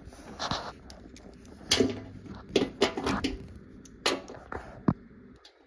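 Scattered short clicks and knocks of bolts being taken out and the metal lower access panel of a front-loading washing machine being worked loose.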